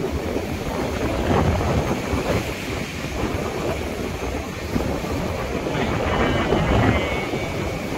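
Wind buffeting the microphone over the steady wash of surf breaking on a rocky shore, rising and falling in gusts.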